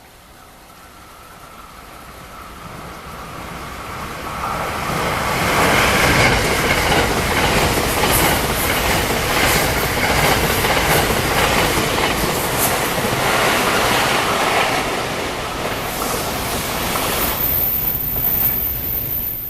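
Freight train hauled by an EF510 electric locomotive passing close by at high speed. Wheel-on-rail noise builds over the first five seconds and then stays loud with a rhythmic clickety-clack of wheels over rail joints, easing near the end.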